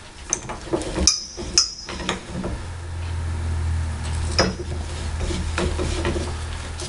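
Steel floor jack being let down: sharp metal clinks and knocks, with a short high ring, as the handle opens the release valve and the lift arm settles, with another knock later on. A steady low hum sets in partway through.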